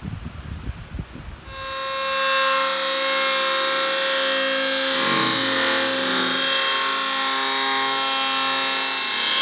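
Chainsaw running at high speed, a loud steady whine that starts abruptly about one and a half seconds in, after a few low knocks.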